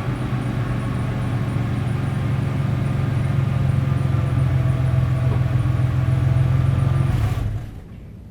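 Ford 3.8-litre V6 running steadily through 2-inch divorced mid pipes and a MagnaFlow cat-back exhaust with all four catalytic converters kept, giving a deep, even exhaust hum. The sound stops abruptly about seven and a half seconds in.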